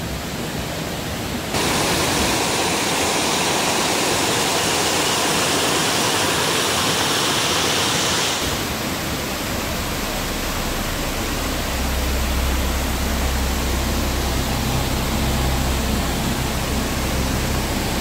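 Steady rush of a waterfall pouring out beneath an old watermill and tumbling over a small weir. The rush jumps in level about one and a half seconds in and drops back about eight seconds in, and a low rumble joins underneath for the last third.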